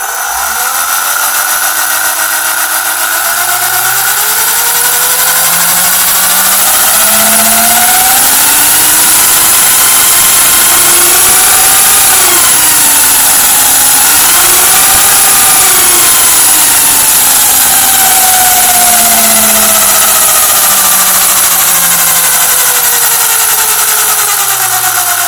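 HPI Vorza RC buggy's drivetrain whirring under throttle. The pitch climbs as it speeds up, dips and recovers about halfway through, then winds down near the end. The whirr is an abnormal sound on acceleration that the owner cannot account for after rebuilding the front differential.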